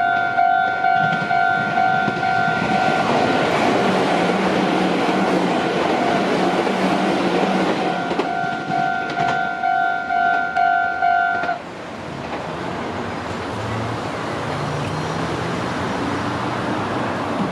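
Japanese level-crossing warning bell ringing in two tones, about twice a second, while a Meitetsu train passes with a swelling rush of wheel noise. The bell stops suddenly about eleven seconds in, and the train's lower running noise carries on.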